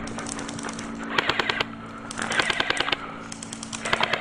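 Airsoft guns firing full-auto: three short bursts of rapid mechanical clatter, the first about a second in and the last near the end.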